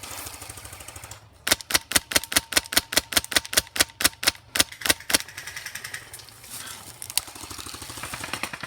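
Airsoft gun firing a rapid string of shots, about six a second, starting just over a second in and stopping after nearly four seconds. Fainter scattered shots can be heard before and after.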